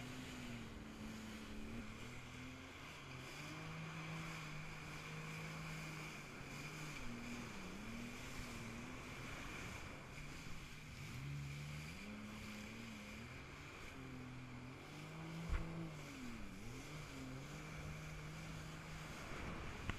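Jet ski (personal watercraft) engine running under way, its pitch rising and falling and dipping sharply a few times as the throttle eases off and comes back on, over a constant hiss of wind and spray and a steady high whine. A single sharp thump comes about three-quarters of the way through.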